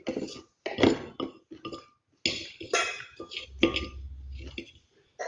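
Dry earthy chunks, such as baked clay, crunching and crumbling close to the microphone: a quick series of sharp, crackly crunches with short pauses between them.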